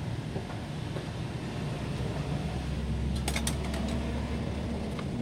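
A steady low mechanical hum that grows stronger for about two seconds in the middle, with a quick cluster of sharp metallic clicks and taps about three seconds in.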